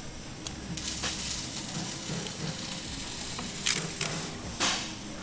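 Utility knife blade slicing through a rubber radiator hose, a steady scratchy cutting sound. Several sharp clicks and knocks of handling, the loudest about four and a half seconds in.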